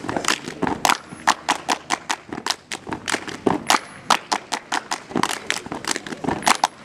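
A group of scouts doing body percussion in unison: sharp hand claps in a quick, uneven rhythm, several per second.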